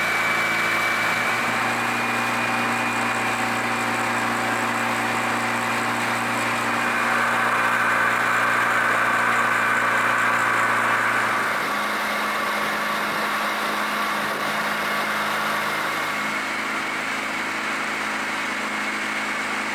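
Yamaha 25 hp four-stroke outboard motor running steadily with the boat under way, over a rush of water and wind. Its note shifts a little about halfway through and again near the end.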